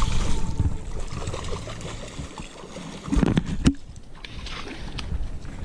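Flowing river water with a low rumble, and a couple of sharp knocks about three seconds in.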